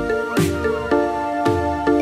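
Electronic intro music: sustained synth chords over a steady drum beat.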